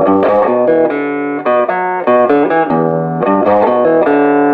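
Electric guitar played clean through a Behringer GMX212 solid-state modeling amp on its British clean setting, a continuous run of picked chords and single notes changing every fraction of a second. The owner hears this clean setting as closer to a Vox AC30 than to a Marshall.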